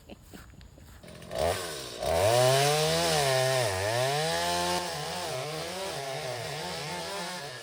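Two-stroke chainsaw starting up about a second and a half in, revving up and down, then running unevenly at lower speed and dying near the end: it has run out of gas.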